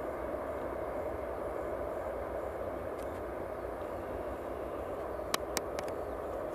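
Steady rumble and rushing noise of an Airbus A319-100 jet airliner's engines and airflow, with three sharp clicks in quick succession about five seconds in.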